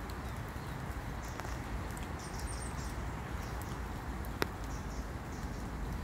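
Outdoor ambience: a steady low background noise with faint, high small-bird chirps about two to three and a half seconds in, and a single sharp click a little past four seconds.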